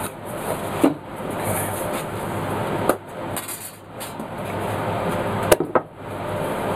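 A few sharp knocks of chipboard pieces and a steel ruler being set down and handled on a workbench, the loudest two close together near the end, over a steady background hiss.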